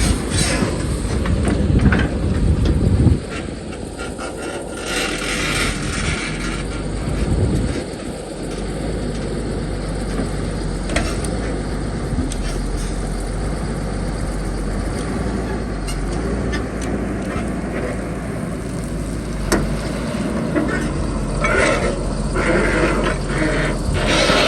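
Heavy excavator's diesel engine running under load, louder for the first three seconds, then steadier, with short scrapes and clanks here and there as the bucket cuts into and piles sand.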